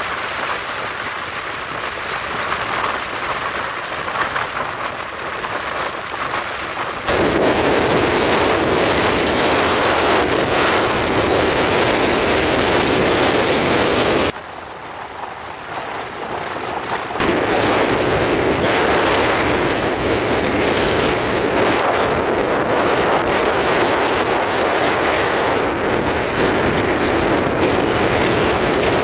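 Wind rushing over the microphone of a moving vehicle, mixed with road and traffic noise. The rush jumps much louder about seven seconds in, drops back around fourteen seconds, and comes up again about three seconds later.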